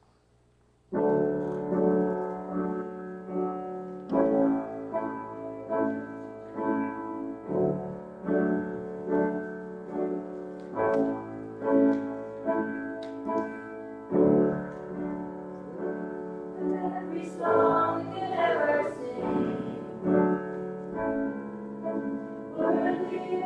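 Piano playing a hymn in steady, evenly paced chords, starting about a second in. Singing voices join in over the piano from about two-thirds of the way through.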